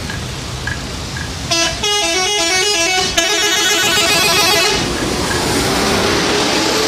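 Bus telolet horn playing a quick melody of stepped musical tones for about three seconds, starting about a second and a half in, over the steady running of the bus.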